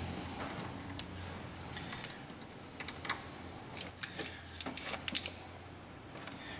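Small sharp clicks and ticks of fingers and a tool working a metal A/C sealing washer, prying the rubber O-ring out of its centre. The clicks are sparse at first and come in a quick cluster about four to five seconds in.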